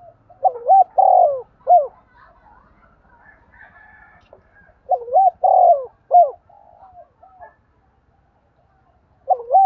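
Spotted dove cooing: three phrases about four seconds apart, each a quick rising-and-falling note, a longer held note and a short final note; the third phrase begins near the end.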